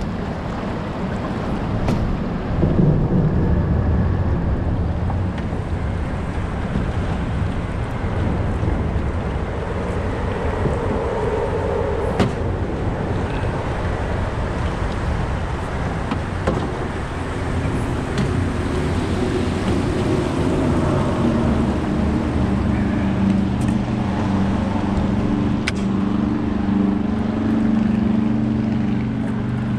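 Steady rumble of wind buffeting the microphone over rushing river current around a small boat. A motor-like hum joins it over the last dozen seconds.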